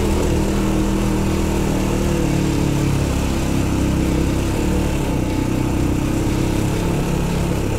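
Motorcycle engine running steadily at low road speed, heard from the rider's seat on board the bike, with a constant rush of wind and road noise over it.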